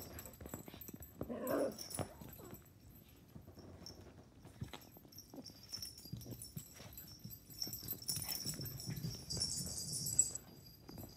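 A beagle puppy and a cat play-wrestling on a rug: rustling and scuffling, with one short puppy cry about a second and a half in, and a burst of scrambling paws on carpet near the end.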